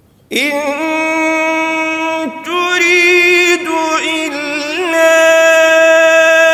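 A man chanting Quran recitation (tilawa) in a melodic style, starting about a third of a second in after a pause, on long held notes with ornamented turns between them.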